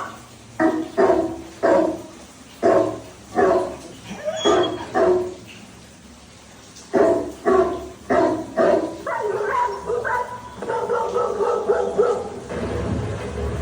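A Labrador barking loudly in short runs of sharp barks, with a pause of about a second and a half partway through. Near the end the barks give way to longer, drawn-out calls, and a low rumble starts up.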